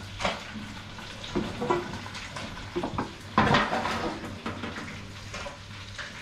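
Metal tongs and utensils clinking and scraping against a foil pan of fried fish, in scattered short knocks, with a louder rustling scrape about three and a half seconds in.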